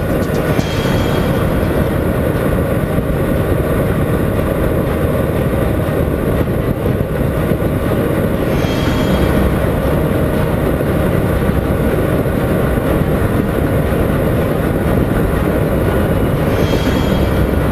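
Honda CBR 125R's single-cylinder engine running at steady highway speed under heavy wind rush on a bike-mounted microphone. Three brief hissier swells come about a second in, midway and near the end.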